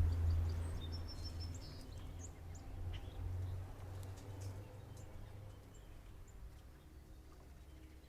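Outdoor ambience with a low rumble that fades away, and a few short, faint high bird chirps between one and two seconds in.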